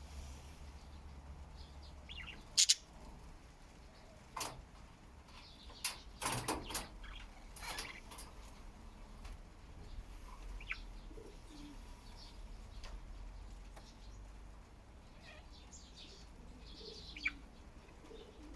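Pet budgies chirping softly now and then, with scattered sharp clicks and taps; the loudest is a double click a couple of seconds in, and a cluster of clicks comes about six seconds in.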